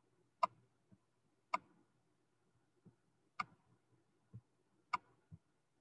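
Four sharp, isolated clicks at uneven intervals, with a few fainter low knocks in between.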